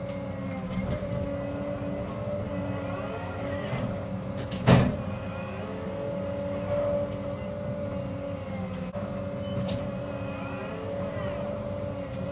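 Cat 306 excavator running steadily under work, its hydraulics whining in short rising and falling glides. A single loud knock comes a little under five seconds in.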